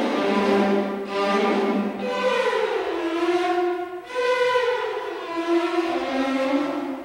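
Music of several held, string-like tones sliding slowly up and down in pitch, overlapping one another.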